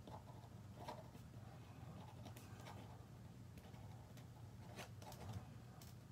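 Faint scratching and rustling of paper being worked by hand, with a few light taps.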